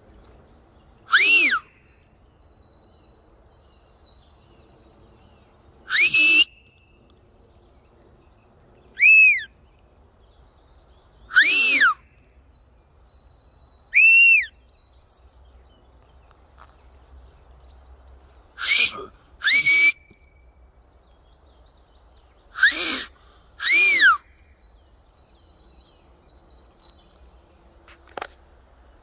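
A loud whistled call, each a short note that rises then falls in pitch, repeated nine times at intervals of a few seconds, twice as a quick pair. Faint high buzzy trills sound between the calls, and there is a single sharp tick near the end.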